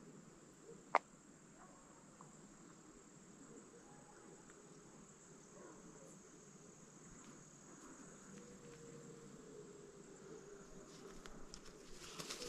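Faint, distant howling of wolves, one long wavering howl carrying for a couple of seconds past the middle, over a steady high insect trill. A single sharp click about a second in, and rustling through brush builds near the end.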